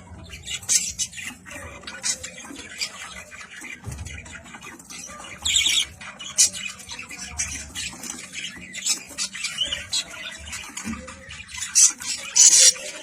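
Budgerigars chattering with rapid, sharp high-pitched squawks and chirps, the loudest squawks coming about five and a half seconds in and again near the end.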